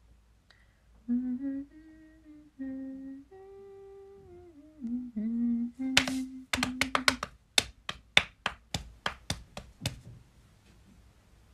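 A woman hums a short wordless tune, holding a few notes and sliding between them. Near the end of the tune a quick run of about fifteen sharp clicks begins, roughly four a second, stopping about a second before the end.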